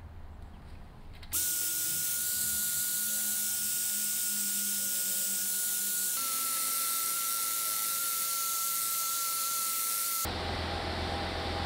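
Cordless drill spinning a steel wire cup brush against a painted steel column, stripping old paint: a loud scratchy hiss over a steady motor whine, starting abruptly about a second in. The whine drops slightly in pitch about halfway through, and the brushing cuts off abruptly near the end.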